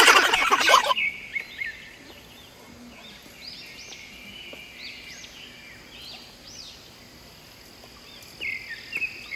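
Steady high insect chorus with repeated short chirping bird calls over it, after a loud rushing noise in the first second.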